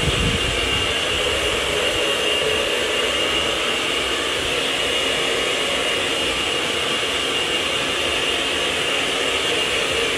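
Handheld electric hair dryer running steadily, a constant rush of air with a thin, steady high whine over it.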